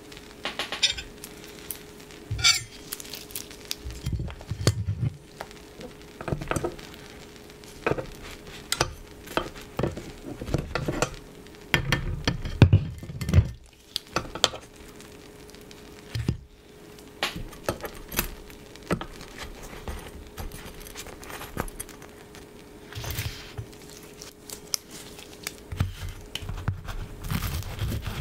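Stainless fork and knife clicking and scraping against a waffle maker's nonstick plate while croffles are lifted out, with clinks on a plate. The sounds are many separate clicks and scrapes, busiest a little before halfway. Near the end the knife starts cutting through a crisp croffle.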